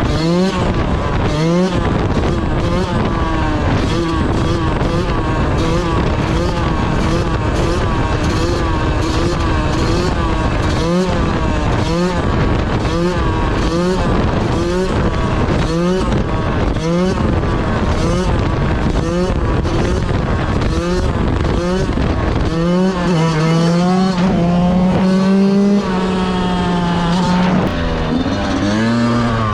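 Yamaha YZ125 125cc two-stroke single-cylinder dirt bike engine revved hard while riding, its pitch rising and falling back again and again about once a second as it pulls and shifts. Near the end it holds a steady high pitch for a few seconds before dropping off.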